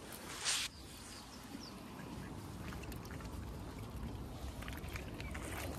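Waterfowl on the water: a short splash about half a second in, then faint clicks and small water sounds with a few short high chirps, over a low wind rumble.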